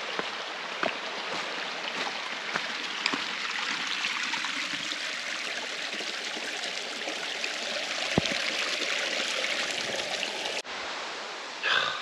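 Stream water running steadily over rocks, an even rush with a few faint clicks.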